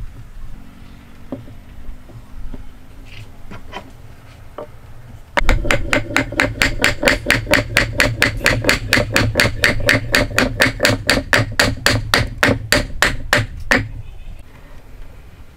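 Wood struck on wood: a dark round wooden rod rapidly tapping a timber base to drive the mortise joint home on a post's tenon. A few scattered knocks come first, then about five seconds in a quick, even run of strikes, several a second, lasting about eight seconds before it stops.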